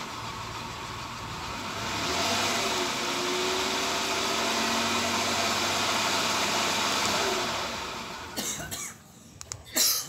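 Car engine running after a remote start, then cutting off about eight and a half seconds in, followed by a few sharp clicks near the end.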